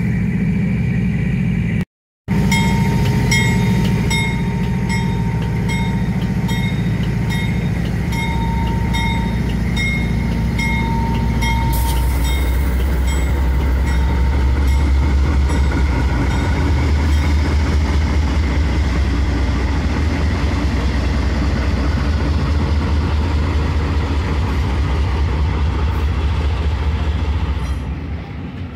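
Diesel engines of two GE C44EMi locomotives running as they pass close by at slow speed: a loud, steady low drone with a repeating high tone over it for the first dozen seconds. The sound cuts out briefly about two seconds in. About twelve seconds in the drone deepens and grows louder, then falls away near the end as tank wagons follow the locomotives.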